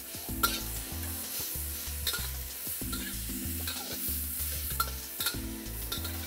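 Edamame pods and minced garlic sizzling in a hot oiled wok as a metal spatula tosses them, with frequent sharp scrapes and clinks of the spatula against the wok. Low background music runs underneath.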